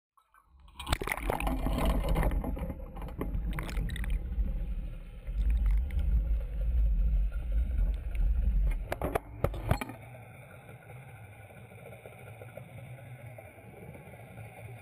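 Boat and water sound from underwater footage: a heavy rumbling wash with a few sharp knocks, dropping about ten seconds in to a quieter steady hum.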